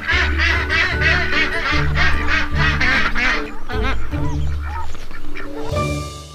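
A flock of Khaki Campbell ducks quacking loudly and rapidly, several quacks a second, over background music with sustained bass notes; both fade out near the end.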